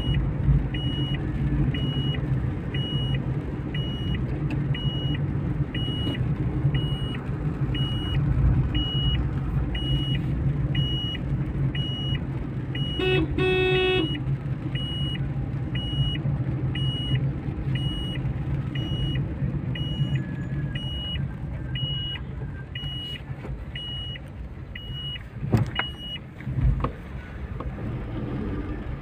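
Car interior while driving: steady engine and road rumble, with the turn-signal indicator ticking about one and a half times a second until it stops near the end. A car horn honks briefly about halfway through, and there are a couple of thumps near the end.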